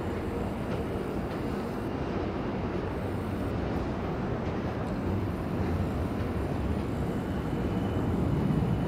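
Steady low rumble of city traffic, with no single event standing out; it grows a little louder near the end.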